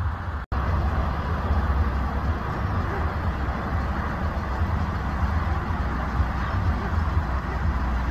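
Wind rumbling on the microphone: a steady low rumble with a hiss above it. There is a brief dropout about half a second in.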